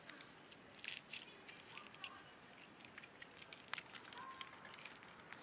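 Slime being squished and worked in the hands: a faint, irregular run of small sticky clicks and crackles, with one sharper snap about two-thirds of the way in.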